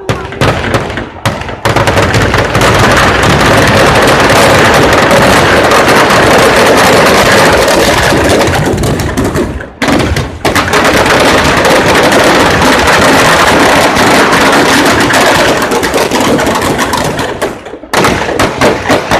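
Firecrackers packed inside burning Dussehra effigies going off in a rapid, near-continuous barrage of bangs. A few separate bangs come first, the barrage breaks off briefly about ten seconds in, then resumes and thins to scattered bangs near the end.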